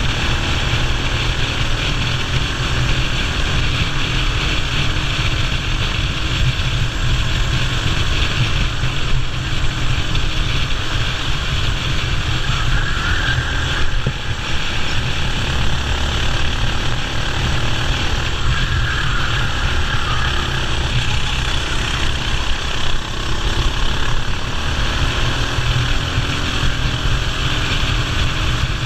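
Racing kart engine running at race speed, its pitch rising and falling, under a heavy low rumble of wind on the microphone.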